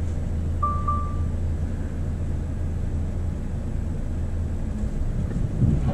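Volvo FH500's 13-litre six-cylinder diesel running at a steady low rumble, heard inside the cab as the truck creeps in reverse. A short electronic beep sounds about a second in.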